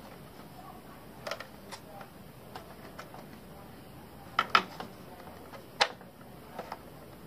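Hard 3D-printed plastic parts clicking and knocking together as the cab is handled and fitted onto the chassis with its cam locks and clips. The clicks are scattered, with the loudest a quick pair about four and a half seconds in and another near six seconds.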